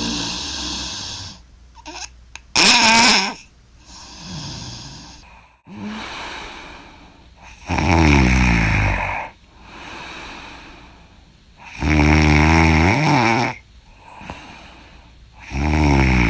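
A young woman snoring hard in her sleep. Loud snores come about every four seconds, each lasting about a second and a half, with softer breaths between. There is a brief, loud, sharp burst about three seconds in.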